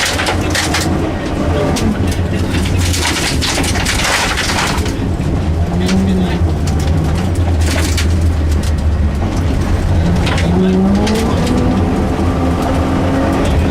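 Rally car engine heard from inside the cabin, driven hard through a stage, its revs rising and falling with gear changes and corners. Bursts of clatter and rush from the road under the car come in the first few seconds and again near the end.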